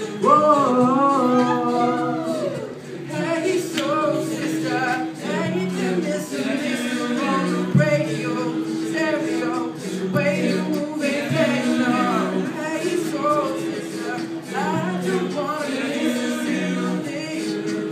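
Young a cappella group singing a pop song, a lead voice over sustained backing harmonies from the rest of the group.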